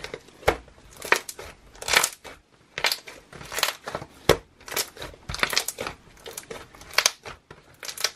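A large, thick homemade slime being squeezed and kneaded by hand, giving off short crackling, squishy pops at an uneven pace of about one or two a second.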